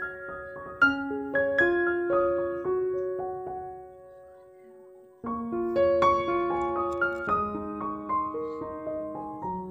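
Background piano music with gently struck, sustained notes; it fades almost away about four seconds in and starts again suddenly just past the five-second mark.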